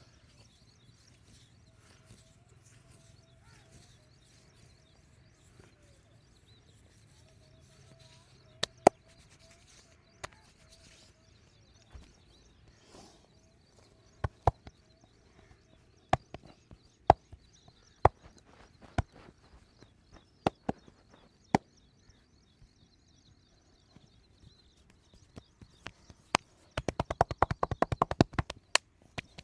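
Hand-massage strikes on the body: single sharp smacks about once a second, then near the end a fast, even run of chopping strikes, about ten a second.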